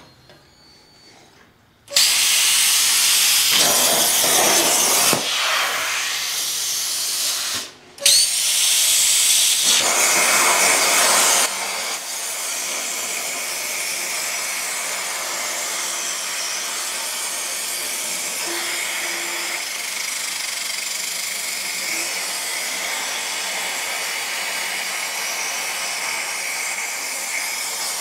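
Hynade 80-amp plasma cutter's machine torch on a CNC table firing and cutting steel diamond plate. A loud hiss of air and arc starts about two seconds in and breaks off briefly near eight seconds. From about twelve seconds it settles into a steady, slightly quieter hiss as the torch travels through the cut.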